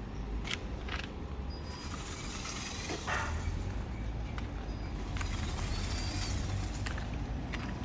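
Handmade all-metal 6x4 RC truck being driven, its motor and metal gear drive running with a steady low rumble and a few light clicks.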